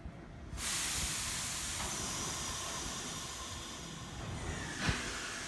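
Sudden hiss of compressed air venting from a stationary Nagano Electric Railway 3500-series electric train just before it departs. The hiss starts abruptly about half a second in, eases a little after about four seconds, and a sharp click comes near the end.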